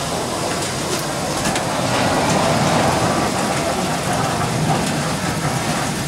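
Amusement-park track ride car running steadily along its concrete guide-rail track: a continuous rumble of motor and wheels, a little louder around the middle, with a few light clicks.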